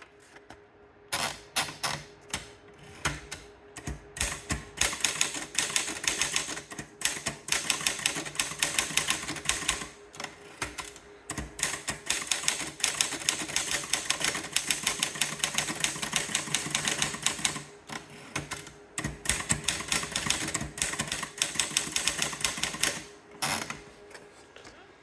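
An Erika Model 34 typewriter being typed on: quick runs of key strikes, several a second, broken by short pauses, which stop about a second and a half before the end.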